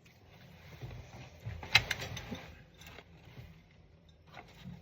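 Plastic ice cream scoop scraping and tapping as toy dough is spread over a small plastic toy cake: soft scraping and rubbing, with a sharp plastic click a little under two seconds in.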